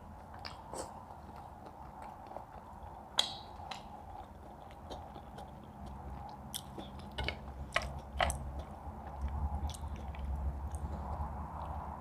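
Close-miked eating: chewing and biting, with scattered short crisp clicks and crunches, over a low steady hum.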